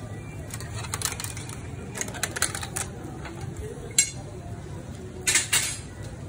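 Metal kebab skewers clinking against the steel edge of a charcoal grill as they are handled, in scattered sharp clicks with one sharp clink about four seconds in and a louder pair near the end, over a steady low hum.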